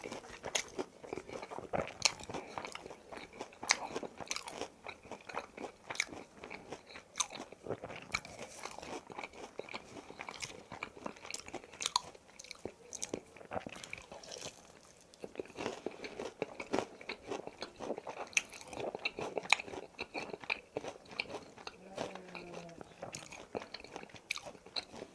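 Close-miked crunching and chewing of crispy boneless fried chicken, with irregular crisp bites throughout.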